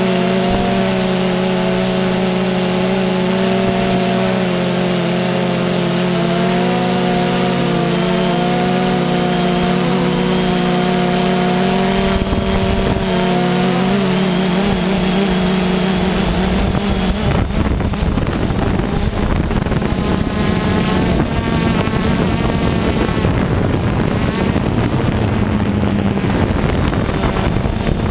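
Multirotor camera drone's electric motors and propellers buzzing steadily, several pitches drifting slightly. From about halfway through the sound turns rougher and noisier.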